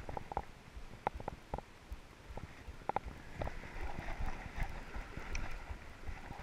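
Rushing river current with a low rumble on the microphone, broken by irregular sharp knocks and clicks.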